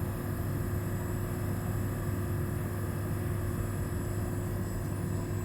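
LG inverter air conditioner unit running with a steady mechanical hum while its refrigerant charge is low, the suction reading near 60 psi instead of about 120 psi.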